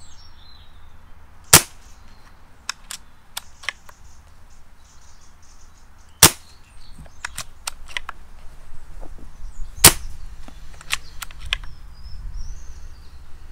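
Milbro Tactical Division Speedmaster CO2 air rifle firing three shots a few seconds apart, with smaller clicks between the shots as the bolt is cycled to chamber the next pellet from its 10-shot magazine.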